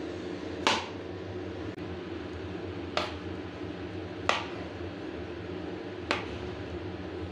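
Kitchen knife chopping roasted eggplant on a plastic cutting board: four sharp knocks of the blade striking the board, a second or two apart, over a steady background hum.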